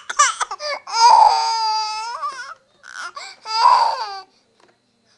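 A 7½-month-old baby crying in a tantrum: a few quick sobs, then a long wail of about a second and a half, then a shorter wail that stops about a second before the end.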